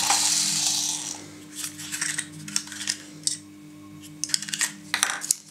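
Hands handling a Kinder Surprise egg's plastic capsule and the small toy pieces inside: a rustle in the first second, then scattered light clicks and taps, over a faint steady hum.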